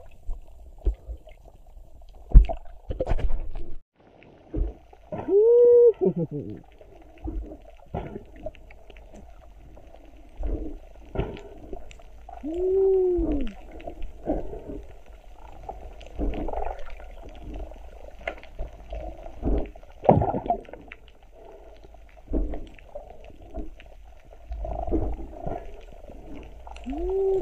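Muffled underwater sound through a submerged camera, with scattered knocks and three arched tones that each rise and fall over about a second and a half: about 5 seconds in, about 12 seconds in, and near the end.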